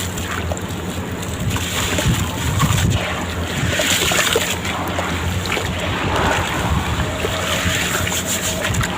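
Sand-cement blocks crumbling and breaking up in water: continuous splashing and sloshing with scattered small crackles.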